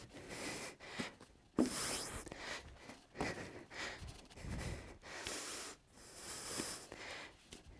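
A woman breathing hard and fast from exertion, a string of forceful hissing breaths about one a second, out of breath mid-workout.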